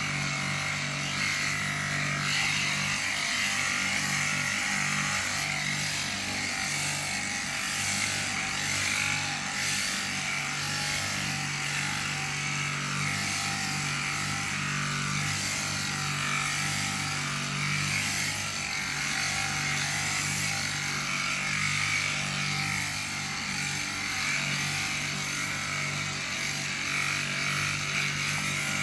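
Electric sheep-shearing handpiece running steadily, a constant motor hum with a higher buzz from the cutter.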